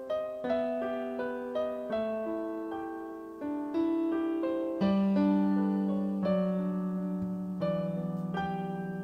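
Kawai piano playing a slow, gentle solo prelude: chords and melody notes struck every half second to second and left to ring. Lower bass notes come in about five seconds in and the playing grows a little louder.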